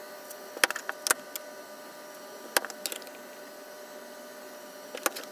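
Sharp clicks and knocks of aluminum soft-plastic lure molds being handled and lifted off the bench: a couple near the start, two in the middle and a quick cluster near the end, over a steady faint hum.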